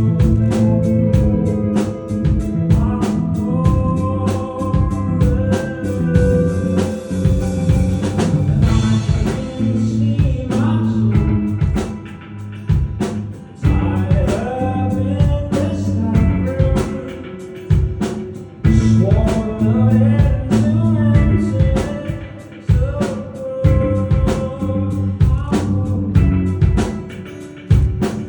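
Rock band playing live: drum kit and guitar under a sung lead vocal, loud and continuous.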